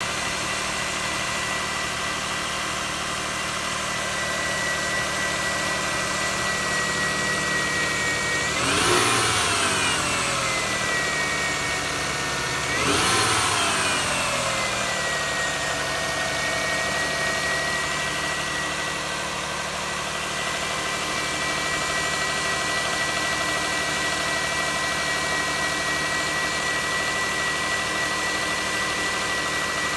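Lexus RX300's V6 engine idling with a steady high-pitched whine, blipped twice in quick succession; on each rev the whine and the engine note rise in pitch and then fall back to idle. The whine, which follows engine speed, is taken for a failing alternator.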